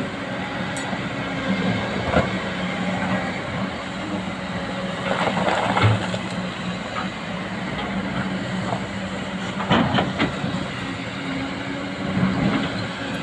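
Excavator diesel engine running steadily, with clanks and scraping from the machine working about two seconds in, again around five to six seconds in, and at about ten seconds.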